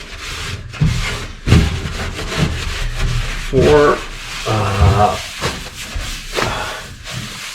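Hand rubbing and wiping strokes over a spare tire to clean it for primer, in irregular scrubbing passes.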